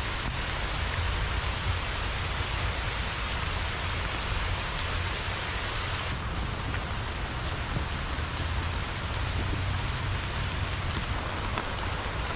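Steady heavy rain falling, with a low rumble underneath; from about halfway through, individual drops ticking sharply close by.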